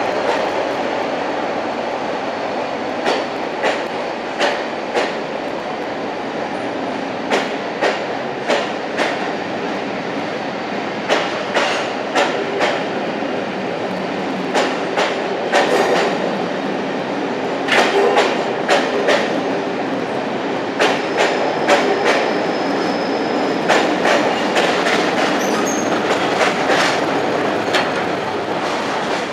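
A rake of passenger coaches rolls slowly past with a steady rumble, its wheels clicking over the track joints in clusters every few seconds as each coach's bogies cross. A faint wheel squeal comes in about two-thirds of the way through.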